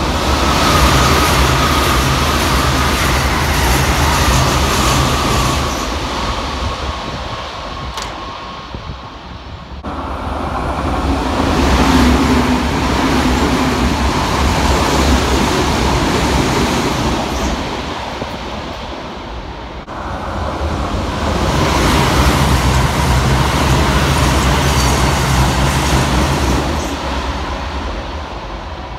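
Electric express trains on the Keikyu Line running through a station at speed, about 110–120 km/h, without stopping. There are three passes, first a Keikyu 600 series, each rising to a loud rush of wheels and motors and then fading, with an abrupt cut between them at about 10 and 20 seconds.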